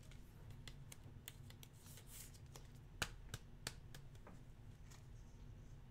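Faint handling of trading cards and their packaging, a scatter of small clicks and taps with three sharper ticks a little after three seconds in, over a low room hum.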